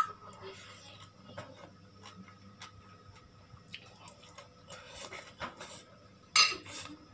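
Eating sounds: a metal fork clicking against a ceramic bowl, with quiet scattered chewing and mouth ticks, and a short loud hiss about six seconds in.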